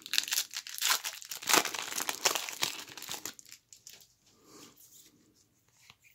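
Foil trading-card pack wrapper (2020 Topps XFL) being torn open and crinkled by hand, a dense crackling tear lasting about three seconds, then fading to faint rustling.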